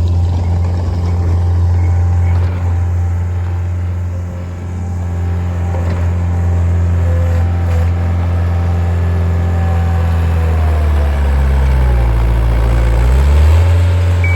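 Diesel engine of a skid steer running steadily. Its note sags lower near the end as it works, then picks back up.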